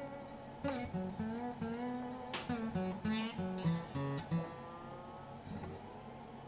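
Background music with a plucked acoustic guitar playing a melody. The notes stop about two-thirds of the way in and trail off.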